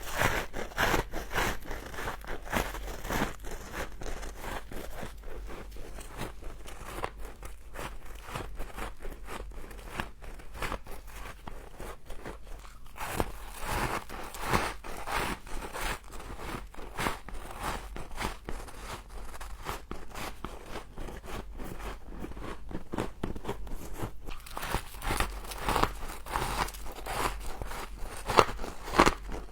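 Close-miked crunching and chewing of frost: a dense run of crisp crunches, louder about halfway through and again near the end, over a faint steady low hum.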